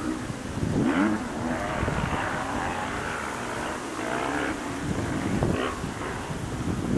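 Airbus A320-232's IAE V2500 jet engines running as the airliner rolls out along the runway just after touchdown: a steady, rushing jet noise with a swell about a second in.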